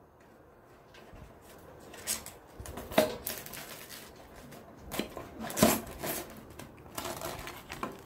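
Handling noise at a desktop computer case: a plastic bag rustling, with about six sharp clicks and knocks of plastic against the case, the loudest about three seconds in and again past the middle.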